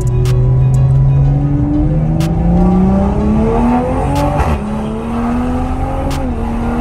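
2021 Toyota Supra A90's turbocharged engine, fitted with a catless downpipe and a Magnaflow xMOD cat-back exhaust with its valve open, heard from inside the cabin with the windows up while accelerating through the gears. The engine note climbs steadily, drops at an upshift about four and a half seconds in, then climbs and drops again at a second upshift near the end, with a few sharp cracks along the way.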